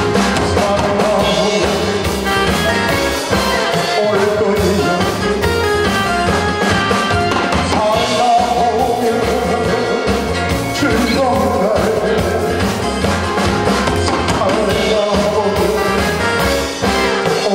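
Live music through a PA: a man sings into a handheld microphone over a keyboard backing with a steady drum beat.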